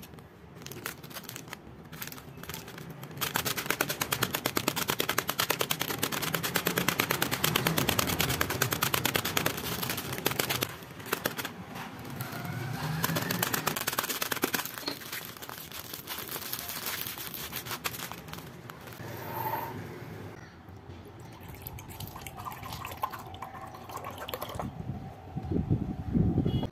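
A wooden stick pounding a packet of Oreo biscuits on a stone counter in rapid repeated strikes, crushing the biscuits inside the plastic wrapper.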